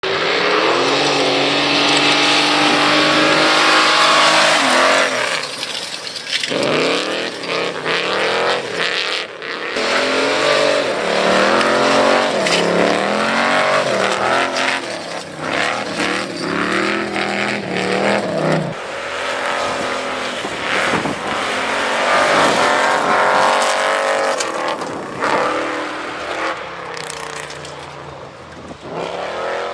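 A customized 1949 Ford's engine revving hard, its pitch climbing and dropping again and again as it accelerates and lets off, with tyre skidding on loose dirt underneath. It grows fainter near the end as the car draws away.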